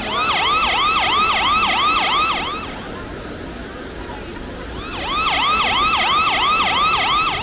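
Electronic siren yelping in two short bursts of rapid rising-and-falling sweeps, about three a second, each burst lasting about two and a half seconds with a pause of about two seconds between them.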